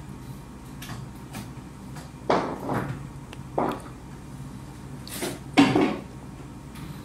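Steel hex keys being handled and set down on the sewing-machine table: several short metallic clinks and knocks, the loudest about five and a half seconds in.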